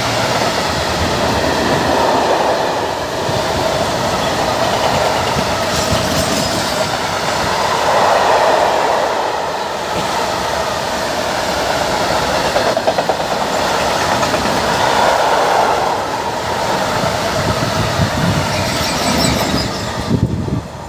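Freight train of covered goods wagons rolling past, wheels clattering over the rail joints with a ringing squeal that swells and fades.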